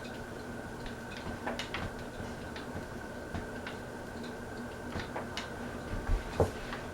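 Hampton Bay Roanoke ceiling fan running on medium speed: a steady hum with a faint high whine, and irregular light ticks. Two louder knocks come near the end.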